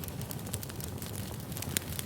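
Wood fire crackling: irregular sharp pops and snaps over a steady low rumble of burning logs, one louder snap near the end.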